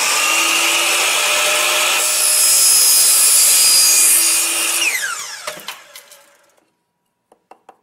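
Power miter saw with a carbide-tooth blade running at full speed, then cutting through an aluminum LED channel profile from about two seconds in, louder and brighter during the cut. After the cut the motor is switched off and its whine falls in pitch as the blade winds down, followed by a few light ticks near the end.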